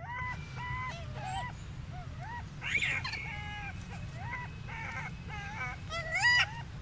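An infant rhesus macaque giving a string of short, high coos, about a dozen in a row, each rising and falling in pitch; the loudest comes near the end. A steady low hum runs underneath.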